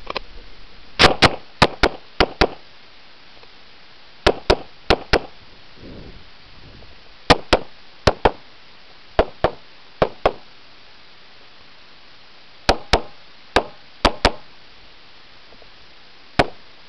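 Glock pistol fired rapidly, about two dozen shots, mostly as quick double taps about a quarter second apart, with pauses of a second or two between groups.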